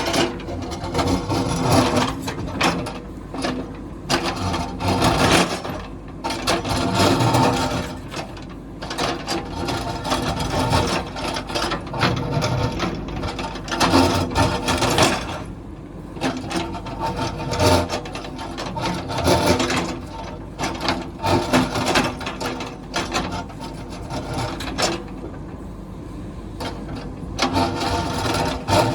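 JCB backhoe loader's diesel engine running under load, with repeated scraping, grinding and clattering of the bucket against rock and stones in surges every second or two.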